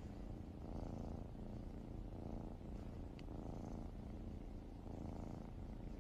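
House cat purring steadily while it is petted; the purr swells and eases with each breath, about every second and a half.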